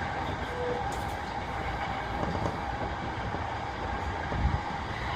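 Cabin running noise of a JR East E233-3000 series electric train at speed: a steady rumble of wheels on rail with a steady high hum over it, and a single low thud about four and a half seconds in.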